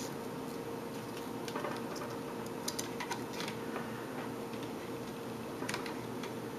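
Scattered light clicks and ticks of metal tools against wire leads and the terminals on a steel chassis while desoldering, mostly in the first half and once more near the end, over a steady background hum.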